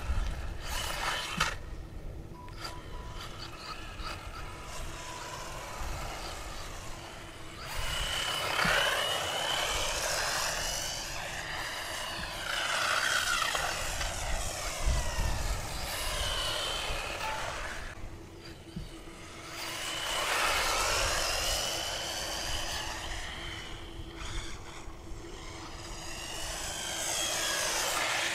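Xinlehong RC car's electric motor and drivetrain whining, the pitch sweeping up and down over and over as the car speeds up and slows, with a lull about two-thirds of the way through.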